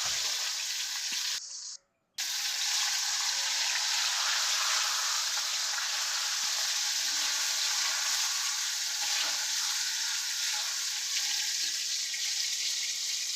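Raw mango pieces, rubbed with turmeric and salt, sizzling steadily as they fry in hot mustard oil. The sound drops out for about half a second near two seconds in, then the sizzling carries on.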